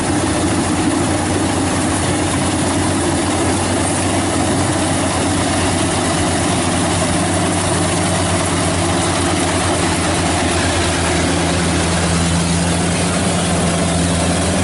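Yamah DC105 Plus crawler rice combine harvester running steadily as it cuts and threshes rice, a continuous engine and machinery hum. A second steady hum joins about halfway through.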